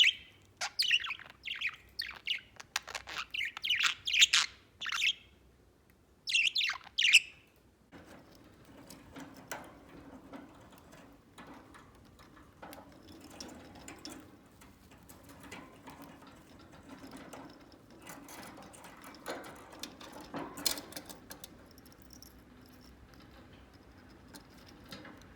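Budgerigar chirping in quick runs of short, high calls for the first seven seconds. After that the chirping stops, leaving faint clicks and scratches over a low steady hum.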